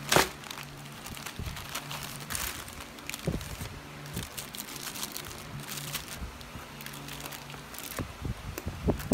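Plastic packaging crinkling and rustling as the bags and box are handled, with many small crackles and a sharp, louder crackle just after the start.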